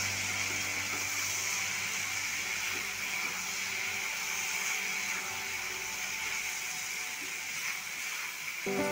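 Food sizzling steadily in hot oil in a pan. Background music comes back in near the end.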